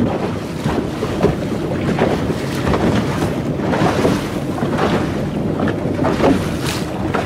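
Wind buffeting the microphone over the steady rush of a small motorboat moving through choppy sea, with irregular gusts and splashes of water.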